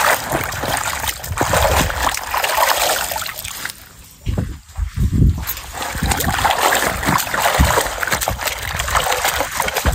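Bunch of taro leaves being dunked and swished in a metal bucket of water, splashing and sloshing, with a brief lull about four seconds in.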